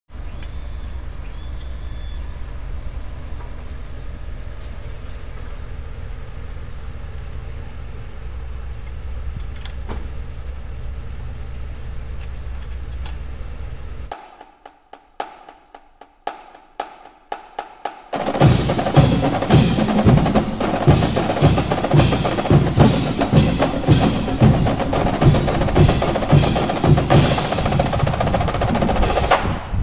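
A steady low rumble for about the first fourteen seconds, then a few seconds of near quiet with scattered clicks. After that come loud, fast drum percussion strikes with a steady rhythm.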